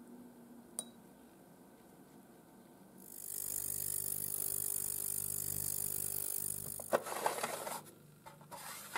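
Ultrasonic cleaner running for about four seconds, a steady hum with a high hiss, then stopping; a short rustling clatter follows and a few light clicks near the end.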